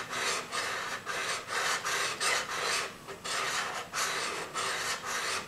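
Diamond-grit file rubbed back and forth across steel-topped guitar frets in short rasping strokes, about three a second. The frets above the 14th are being filed down to put a fall-away into the fingerboard's upper end.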